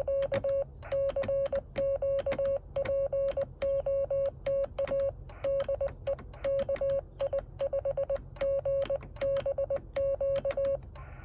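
Morse code CW sidetone from a Yaesu FT-817, a steady tone of about 600 Hz keyed on and off by hand in dots and dashes, with sharp clicks where the tones start and stop. The key is being worked manually, without an automatic keyer.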